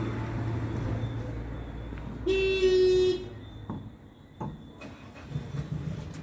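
A car horn toots once, a single steady note a little under a second long, about two seconds in. It sounds over the low rumble of a vehicle, which fades just after. A couple of light knocks follow.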